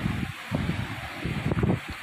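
Wind buffeting the microphone in uneven gusts, over a steady hiss of surf on the rocks.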